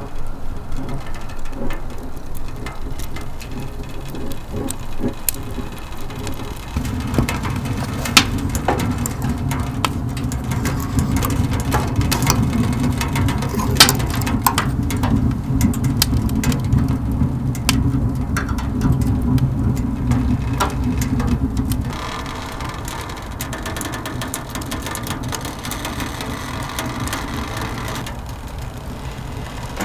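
Wood fire crackling and popping inside a homemade stainless-steel camping wood stove, with irregular sharp snaps over a low rumble that grows louder after several seconds and falls away about two-thirds of the way through.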